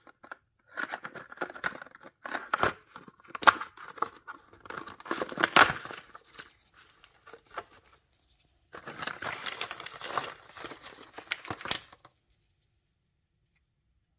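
Cardboard coffee-capsule sleeve being torn open and handled, crinkling and tearing with sharp clicks, then aluminium coffee capsules sliding out of it.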